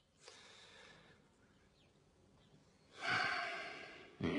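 A man sighing: a long breathy exhale about three seconds in that fades away over a second, after a fainter breath near the start. A brief low sound comes right at the end.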